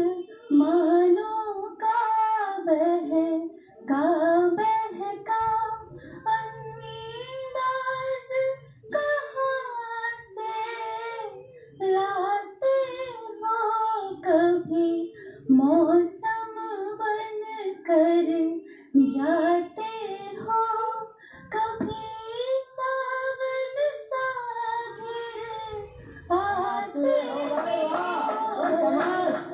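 A woman singing a Hindi geet (a sung poem) solo at a microphone, melodic phrases of a second or two with short breaths between, heard through a television speaker. Near the end, applause comes in under the last phrase.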